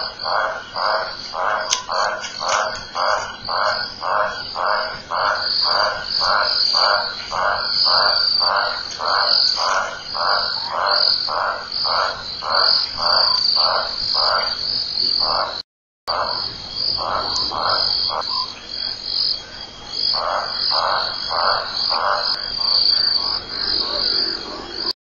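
A frog calling in a long, even series of short croaks, about two to three a second, over a steady high trill of night insects. The calls drop out briefly about two-thirds of the way through, pause again shortly after, then resume before the sound cuts off at the end.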